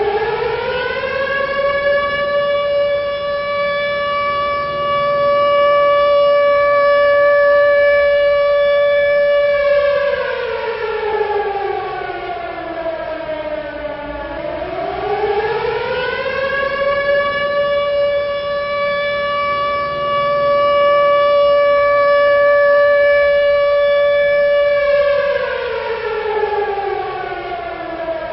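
World War II air-raid siren wailing: its pitch winds up at the start and holds a long steady tone, slides down over about four seconds, winds back up and holds again, then falls once more near the end.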